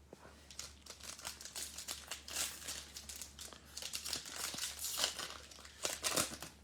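Foil wrapper of a football trading card pack crinkling and tearing as the pack is opened, in uneven bursts of crackle, loudest about two and a half seconds in and again near the end.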